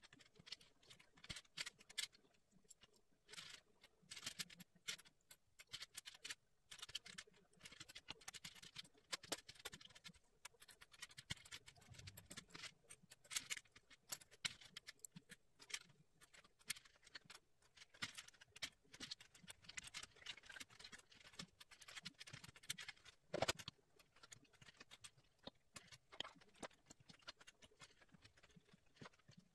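Jigsaw puzzle pieces being picked out of plastic sorting trays and set down one by one on a wooden table: a long run of light, irregular clicks and taps, with one louder knock about 23 seconds in.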